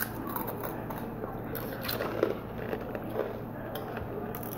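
Takis rolled tortilla chips crunching as they are bitten and chewed, a run of small irregular crackles and clicks.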